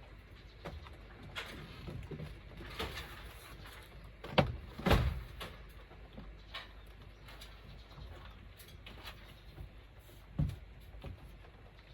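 Scattered knocks and clunks of hands-on installation work, the loudest a pair about four and five seconds in and another near the end, with a dove cooing in the background.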